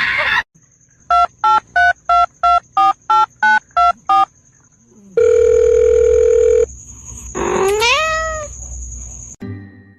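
Telephone keypad dialing: about ten short touch-tone beeps at roughly three a second, then a steady telephone tone held for about a second and a half. A cat then meows once, rising and falling in pitch.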